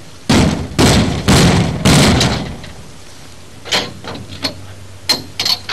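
Steel-framed portable horse stall panels rattling and banging in four loud bursts as they are fitted together at a post connection, followed by a few sharp metal clicks.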